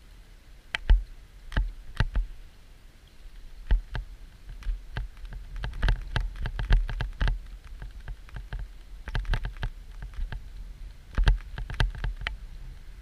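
Irregular sharp clicks and knocks with dull thumps beneath them, scattered at first, then crowding together for a few seconds in the middle and again near the end.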